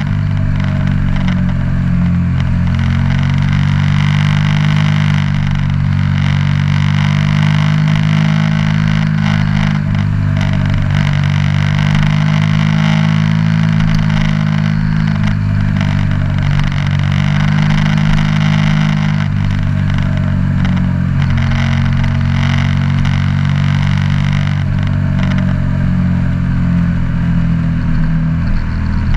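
KTM 1290 Super Duke R's V-twin engine running at cruising speed, heard from on board, its revs holding roughly steady with small rises and dips, over a steady rush of wind.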